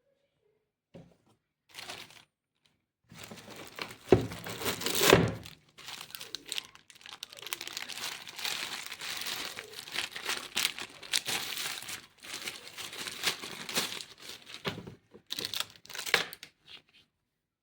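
Packaging crinkling and tearing as a newly bought rotary hammer is unwrapped, in irregular rustling stretches. The loudest handling comes about four and five seconds in.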